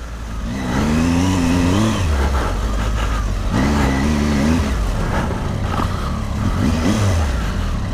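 Triumph Tiger adventure motorcycle's three-cylinder engine running at low speed off-road, heard through a helmet microphone over a steady low rumble. Its note rises and wavers twice as the throttle is worked.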